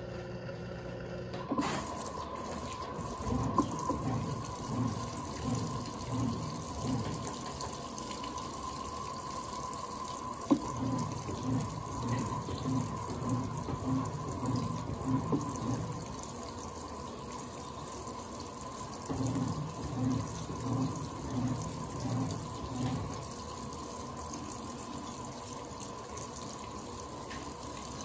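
Electrolux LTA15 direct-drive washing machine filling with water for the final rinse: water rushes into the tub, starting about two seconds in, with a faint steady tone over it. Low pulses come about twice a second in two stretches.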